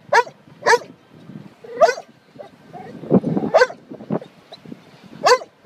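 A yellow Labrador retriever giving about six short, high-pitched barks and yelps at irregular intervals, excited by a dolphin swimming alongside the boat.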